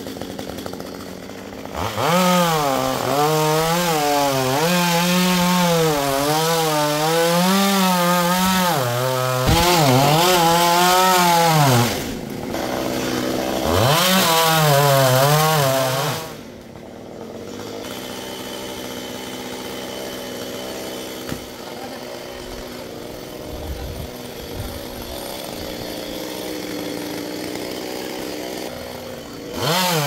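Two-stroke Stihl chainsaw cutting mahogany, the engine's pitch wavering as it works under load. It eases off briefly about twelve seconds in and bites again, drops to a steady idle at about sixteen seconds, and revs up again near the end.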